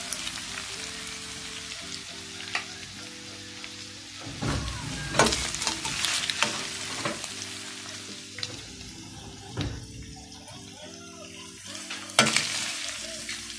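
Diced meat sizzling as it fries in its own rendered fat in a metal pot. Its cooking water has boiled away, so only the fat is left frying. A spoon stirs and scrapes through it, knocking against the pot several times.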